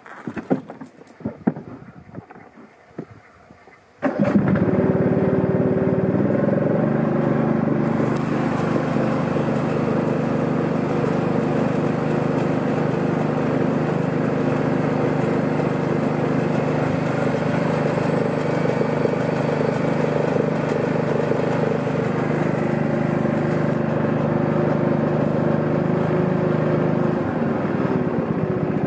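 Stiga Park 220 ride-on mower: a few clicks and knocks, then its engine starts suddenly about four seconds in and runs steadily, stepping up in speed twice soon after starting. Near the end the engine speed drops.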